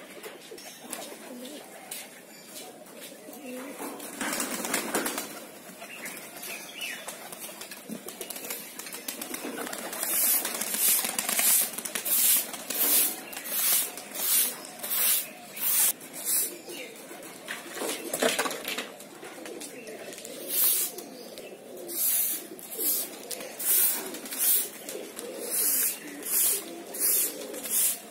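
Long-handled straw broom sweeping a concrete yard, swishing in regular strokes about one and a half a second from about ten seconds in. Pigeons coo underneath.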